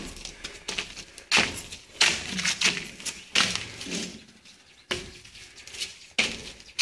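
Irregular bursts of rustling and scraping as a person crawls through a narrow gap between concrete pillars, body and clothing brushing the concrete, each burst starting suddenly and fading, with a quieter moment about two-thirds of the way through.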